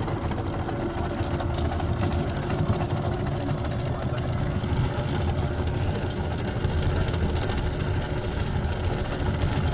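Boat engine running steadily with a low rumble and a constant hum.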